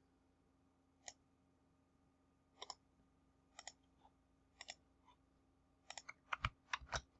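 Computer mouse and keyboard clicks, faint and sparse: single and paired clicks about a second apart, coming quicker near the end.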